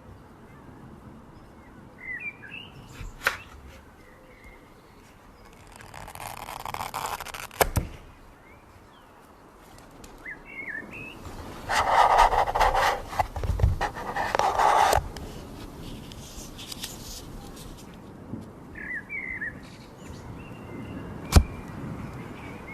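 Short bird chirps now and then, over rustling and a few sharp clicks; the rustling is loudest for about three seconds in the middle.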